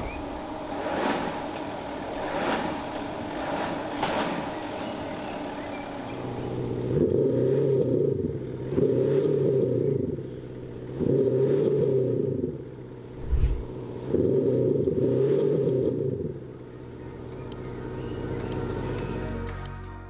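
BMW X5 M50d's six-cylinder diesel with a Maxhaust active sound system switched on, the system playing a synthetic engine note through a speaker at the exhaust. The stationary SUV is revved four times, each rev lasting a second and a half to two seconds, with a short low thump between the third and fourth, then it settles to a steady lower note.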